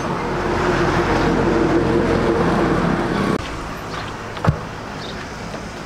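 A motor vehicle engine running loudly, cutting off abruptly about three and a half seconds in, then a single sharp knock about a second later.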